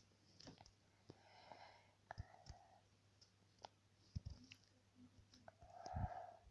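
Faint scattered clicks and taps, like kittens' claws and paws on the floor as they play-fight, with a short soft breathy sound about six seconds in.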